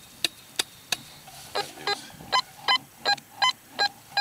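Fisher F75 metal detector sounding target signals as the search coil sweeps the ground. First come a few sharp clicks, then from about a second and a half in, a quick run of short beeps, nearly three a second.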